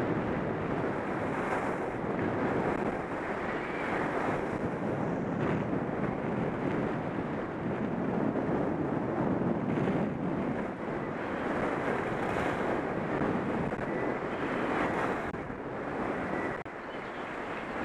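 Wind rushing over a skier's helmet-camera microphone during a downhill run, mixed with the hiss of skis on packed snow, swelling and easing through the turns.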